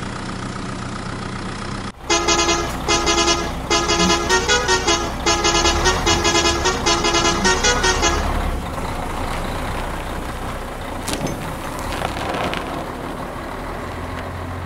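A steady engine hum, broken off about two seconds in by a musical vehicle horn playing a tune of short repeated notes for about six seconds over a low engine rumble. The rumble then runs on alone.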